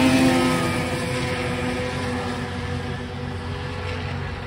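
Two racing snowmobiles at full throttle pulling away up a hill in a drag race. Their engine note is loud at first and fades steadily as they climb away.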